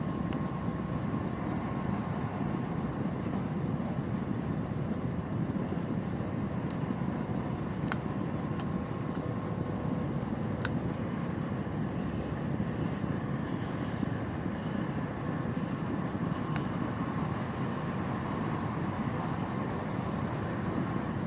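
Steady rolling rumble inside an Intercités passenger coach travelling at speed, with a faint steady hum and a few sharp ticks in the middle.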